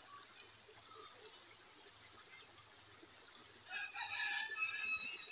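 A rooster crows once, about four seconds in, over a steady high drone of insects.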